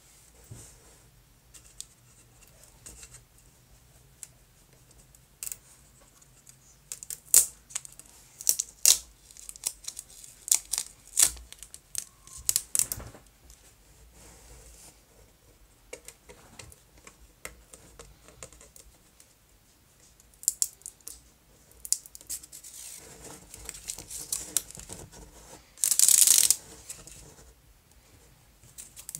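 Thin plastic wrapper label on a plastic Coca-Cola bottle crackling and crinkling in irregular clicks as fingers work it loose. Near the end comes one longer tearing sound, about a second long, as the label is pulled away.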